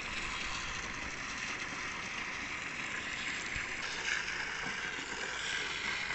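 Steady rushing hiss of a water jet from a hose spraying into tin-ore sand.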